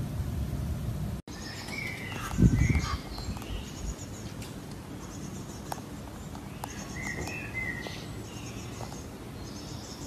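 Birds chirping, short repeated calls, with a brief low thump about two and a half seconds in.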